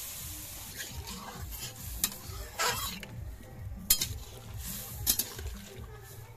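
A metal spatula stirring a wet curry in a metal wok over a wood fire, with four sharp clinks and scrapes against the pan, roughly a second apart. A sizzle from water just poured into the hot pan fades over the first second.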